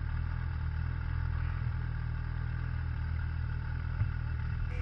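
A steady low mechanical hum, like a motor or engine running at idle.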